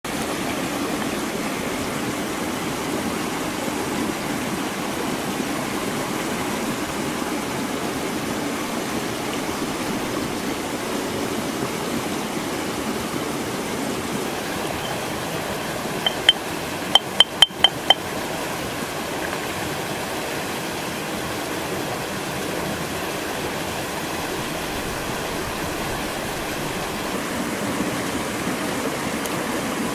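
Steady rush of running water. About halfway through, a quick run of about six sharp, ringing clinks: a stone pestle striking the rim of a stone mortar while pounding chili paste.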